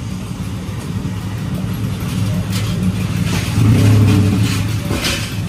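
A motor vehicle's engine running with a steady low hum, growing louder about three and a half seconds in, then easing slightly.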